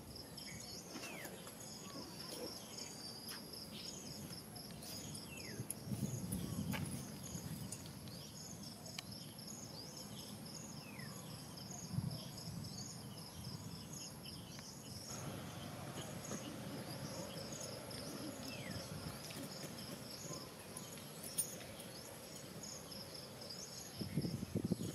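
Insects chirping in a steady, high-pitched pulsing rhythm, with a few faint short falling calls. Rustling in leaf litter swells about six seconds in, with a single thump about halfway through and more rustling near the end.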